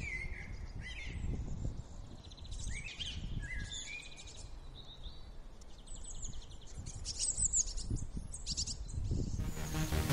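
Small birds chirping and trilling in repeated short calls, over a low, uneven rumble of wind on the microphone. Loud electronic music cuts in near the end.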